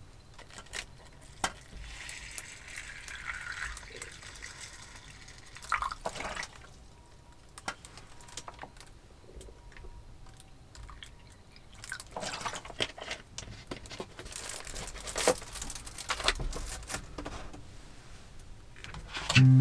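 Water poured from a plastic bottle into a small paper-lined clay pot of rice, with scattered light knocks and clicks.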